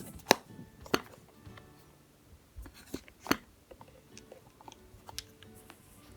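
Makeup cases being handled: sharp clicks and taps, three louder ones among several soft ones, over faint background music.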